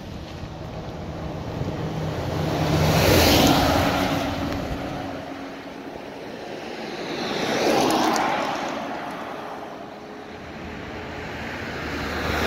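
Road traffic passing by: two vehicles go past, one about three seconds in and one about eight seconds in, each building to a rushing peak and fading away.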